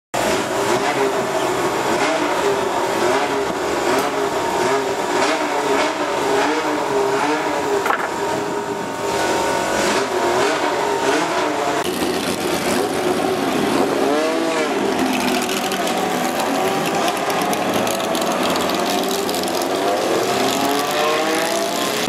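Ferrari 512 BB LM's 4.9-litre flat-12 racing engine idling through its quad exhausts, engine speed wavering up and down. Then racing cars driving slowly past: one gives a short rev about 14 seconds in, and another's engine note rises near the end.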